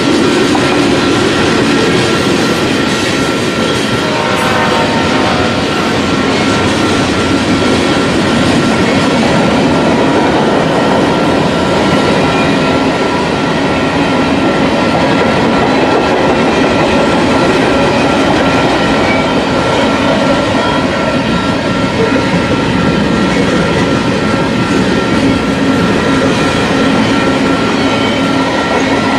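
Manifest freight train's cars rolling past close by: a loud, steady rumble and clatter of wheels on the rails, with a thin steady high whine over it.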